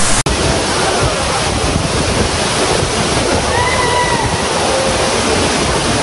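Tirathgarh waterfall's falling water: a steady, dense rush of water crashing into the plunge pool, heard through the camera's own microphone after a brief dropout at the start. Faint distant voices are heard about halfway through.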